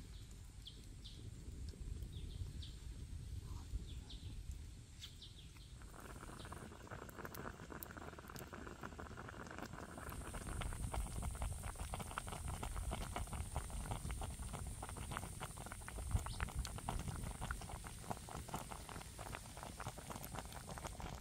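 Wood cooking fire crackling under a wok of fish and chili broth that is bubbling on the boil. The crackling and bubbling turn dense from about six seconds in.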